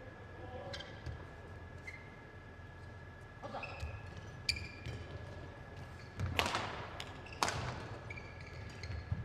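Several sharp knocks ringing out in a large sports hall, the two loudest about six and seven seconds in, with a few short squeaks of court shoes on the badminton court floor. A faint steady high whine runs underneath.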